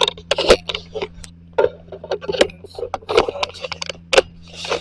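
Handling noise from a camera being turned and repositioned: irregular clicks, knocks and rubbing at an uneven pace, over a faint steady hum.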